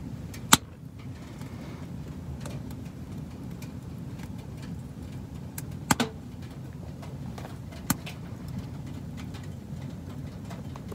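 Wood fire burning in a small tent stove with a glass door: a steady low rumble with faint crackles, and three sharp pops, about half a second in, around six seconds in and around eight seconds in.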